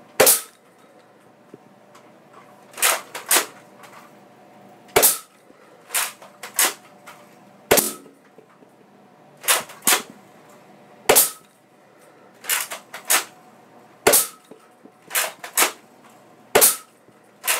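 Nerf blaster with a rotating six-round chamber being cocked and fired shot after shot, emptying its foam ball rounds: a run of sharp, loud snaps, often in close pairs, one to two seconds apart.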